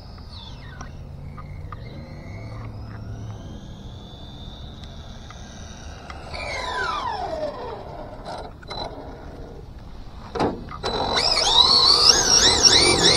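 Electric motor and drivetrain of a Team Associated DR10 RC drag car whining. A whine falls in pitch as the car slows and comes back, and a couple of clicks follow. Near the end a loud, wavering whine rises and falls as the motor is revved with the car's rear held up by hand.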